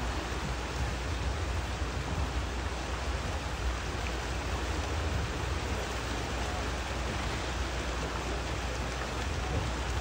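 Steady rush of shallow stream water running over rocks, with a low rumble beneath.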